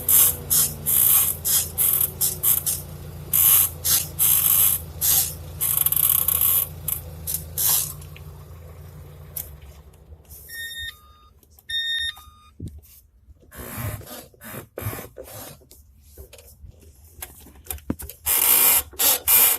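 Renault Logan clutch pedal squeaking, a run of short high squeaks as the pedal is pressed and released again and again. A low steady hum lies under the first half and dies away, and two short runs of electronic beeps come a little past halfway.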